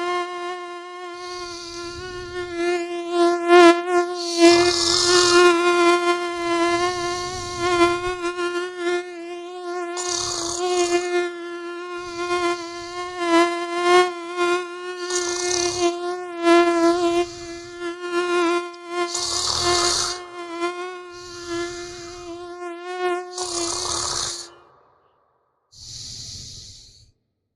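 Mosquito whine, a steady high drone wavering slightly in pitch, with snoring breaths every two to three seconds. About three quarters of the way through, the whine and the snoring stop for a moment; one last breath comes before the whine returns.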